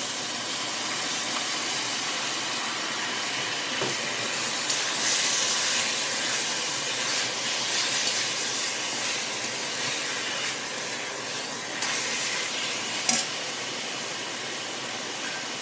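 Chicken pieces and a lemongrass, garlic and chilli paste sizzling in hot oil in a steel wok while being stirred with a metal spatula. The sizzle swells about five seconds in, and there are a few sharp clacks of the spatula on the wok, the loudest near the end.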